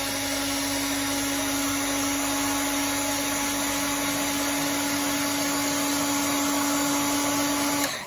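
Electric heat gun running steadily, a hum over a rush of hot air, shrinking heat-shrink tubing over a crimped butt connector; it switches off near the end.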